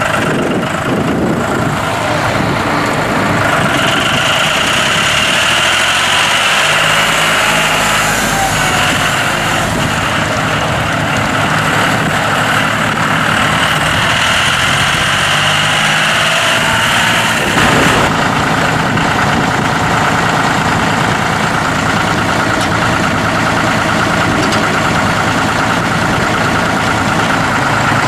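John Deere 5103's three-cylinder diesel engine running steadily as the tractor drives, with a high whine that comes and goes twice. About 18 seconds in the sound changes abruptly to a steadier, even engine run.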